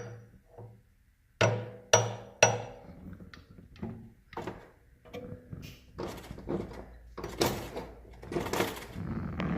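Lathe live center being tapped into the tailstock's taper to seat it: a few sharp metallic taps with a short ring, then a run of irregular knocks and clatter.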